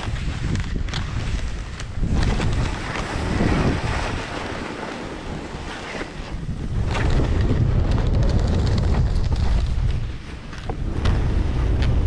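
Wind buffeting an action camera's microphone at skiing speed, over the hiss of skis cutting through deep powder snow. It rises and falls in several surges.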